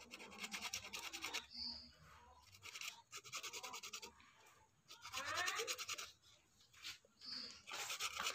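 Fine sandpaper rubbed by hand over a small blender part to take off old glue residue, in quick back-and-forth strokes that come in about four short bursts with brief pauses between.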